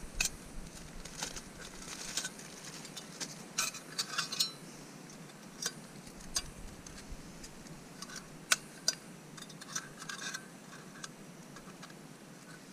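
Light metallic clicks and clinks, irregular and scattered, as a folding Esbit pocket stove is handled and unfolded.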